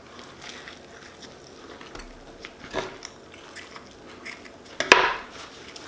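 Close-up mouth sounds of a person biting and chewing a shrimp po' boy sandwich, with scattered small clicks and a louder crackle about five seconds in.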